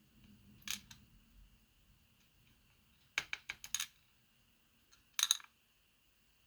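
Small metal lock pins clicking and rattling as they are tipped out of a Medeco Biaxial lock cylinder: a click about a second in, a quick run of several clicks around three seconds in, and a short rattle near the end.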